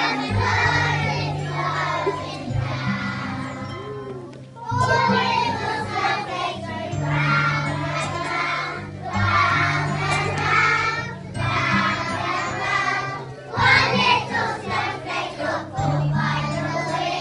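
A young children's choir sings a Christmas song over an instrumental accompaniment with a steady bass line. The singing stops briefly about four and a half seconds in, then carries on.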